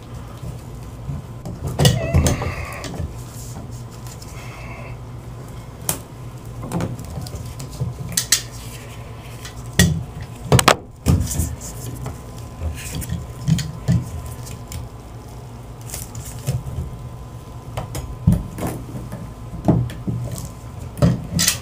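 Tongue-and-groove (Channel Lock) pliers clicking and clinking as they are handled and set on a towel-wrapped bathtub spout. Scattered sharp clicks and knocks, the loudest a little before halfway, over a steady low hum.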